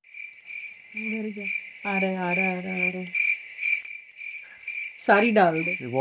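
Cricket chirping, a steady high trill pulsing two or three times a second, used as the comic 'crickets' effect for an awkward silence after something fails to happen. Short low voice sounds come and go over it.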